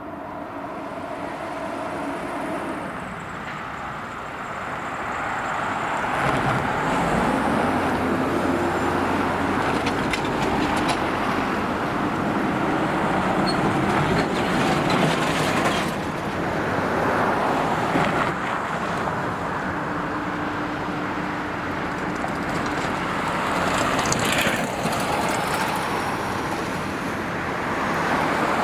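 Road traffic passing on a road: car tyres and engines, the noise building over the first few seconds as vehicles approach and staying up through a steady flow of passing cars.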